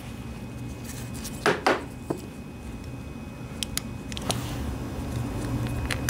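Small metal carburetor parts handled on a workbench: two sharp clinks about one and a half seconds in, then a few lighter clicks, over a steady low hum.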